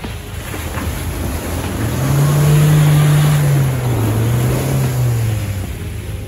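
Mahindra Thar SUV engine revving while off-roading. The revs climb about two seconds in and hold, dip briefly, rise again, then drop back near the end.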